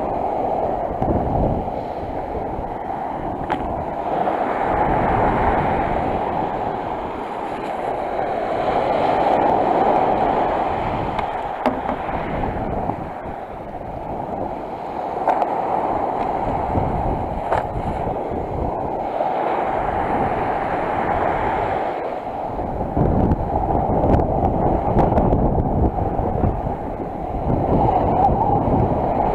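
Sea surf washing on the shore, a continuous rushing that swells and eases every few seconds.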